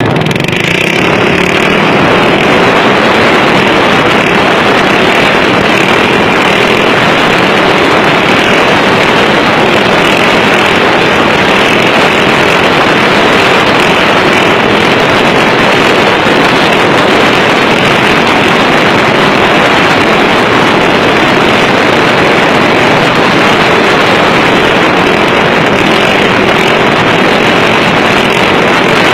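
Motorized drift trike's small engine running, loud and steady throughout.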